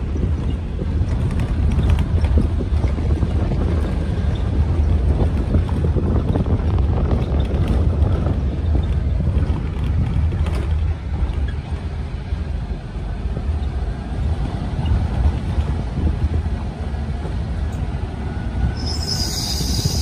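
Low rumble of a vehicle travelling over a gravel road, with wind buffeting the microphone. A high steady hiss comes in near the end.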